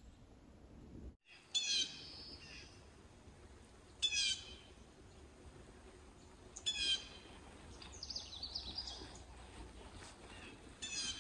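A songbird singing the same short phrase of high notes that step downward, four times about two and a half seconds apart, with softer high twittering in between.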